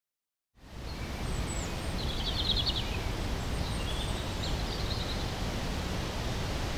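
Outdoor countryside ambience that fades in after a moment of silence: a steady low rumble and hiss, with a few high bird chirps and one short rapid trill.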